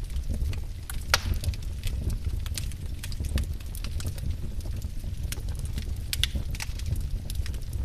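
Burning firewood crackling, with irregular sharp pops and snaps over a steady low rumble of the flames; the loudest pop comes about a second in.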